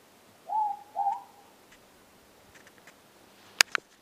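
Morepork (ruru, New Zealand's small native owl) giving its two-note 'more-pork' call, each note a short hoot about half a second apart. Near the end there are two sharp clicks in quick succession, louder than the call.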